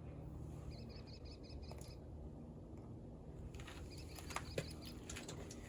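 A small bird chirping faintly in two quick series of short high notes, over low steady outdoor background noise, with a few light clicks near the end.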